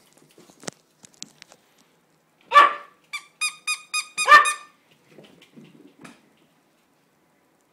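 Small dog barking in play: a quick run of about six short, high-pitched barks, the first and last loudest, followed by faint scuffling.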